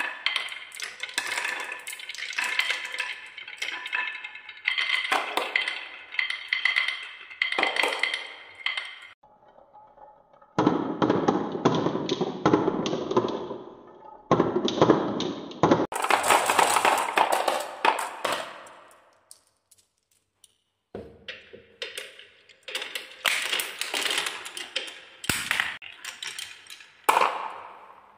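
Marbles rolling and clattering down wooden wave-shaped tracks and around a wooden spiral, with dense runs of clicks as they knock against the wood and each other. The sound breaks off and starts again several times, with a short near-silent gap about two-thirds of the way through.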